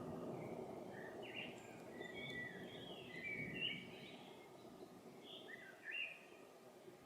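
Birds chirping and calling in short phrases over a low background rumble that slowly fades away.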